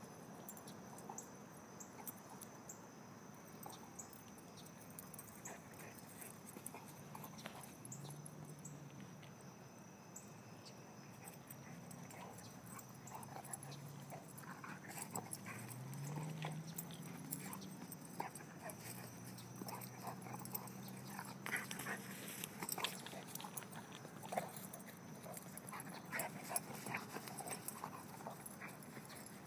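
Coonhound running and playing on dry ground: faint scattered patter of paws and dog sounds. A low hum with a slight rise in pitch runs underneath through the middle of the stretch.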